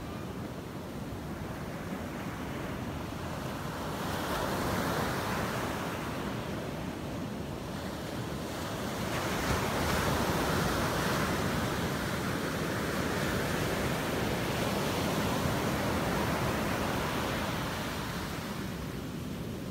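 Ocean surf breaking on a sandy beach and its foam washing up the shore as a steady rush, swelling louder about four seconds in and again from about nine seconds as waves come in.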